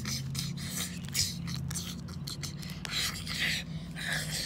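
Plastic toy dinosaur figures scraping and rubbing on rough asphalt in short, uneven rasps, over a steady low hum.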